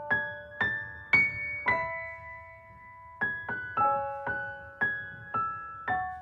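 Slow, soft piano music: notes and chords struck one after another and left to ring out, with a pause of about a second and a half in the middle.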